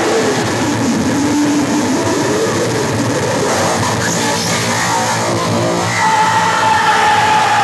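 Live harsh noise music from electronics: a loud, dense wall of distorted noise, with a tone sweeping down and back up in the first few seconds and a steady high tone coming in about six seconds in.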